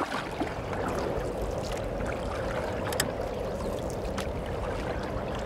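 Steady noise of running, sloshing water, with a couple of sharp clicks partway through.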